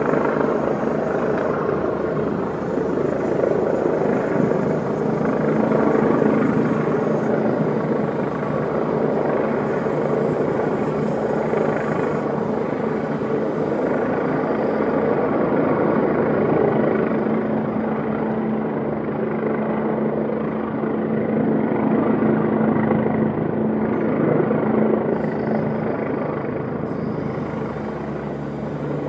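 Police Eurocopter EC145 helicopter hovering overhead: a steady drone of main rotor and twin turbines, swelling and easing slightly in loudness as it holds position.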